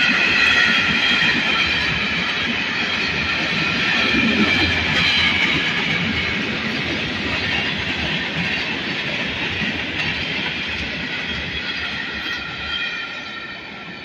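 Freight train's covered hopper cars rolling past on the rails, a steady rumble of wheels on track with a high-pitched wheel squeal over it. It fades over the last few seconds as the end of the train passes.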